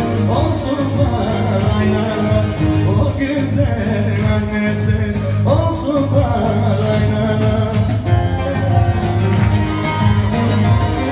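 Live music amplified through a hall PA: a man singing into a handheld microphone over electronic keyboard accompaniment with a steady bass line.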